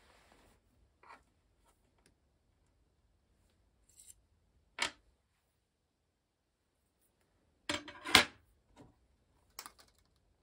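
Small airgun barrel-liner parts being handled on a wooden table: a brief soft rub, then a scattering of sharp metallic clicks and taps, the loudest a quick double tap about eight seconds in.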